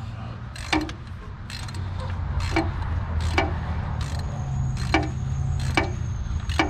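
Ratchet wrench clicking in short strokes, about one a second, tightening the Chevy Cruze's oil filter housing cap back down after a filter change, over a steady low hum.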